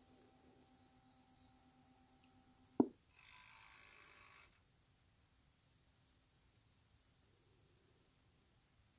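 Faint room noise with a low steady hum that cuts off at a sharp click about three seconds in, followed by a short burst of hiss and then a few faint high chirps.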